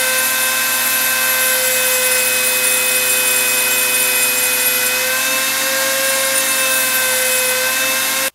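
Handheld rotary tool with a small grinding stone running at high speed and grinding into the crimped steel rim of a transmission filter canister, throwing sparks: a steady, high-pitched whine with a grinding hiss. The pitch shifts slightly about five seconds in, and the sound stops abruptly near the end.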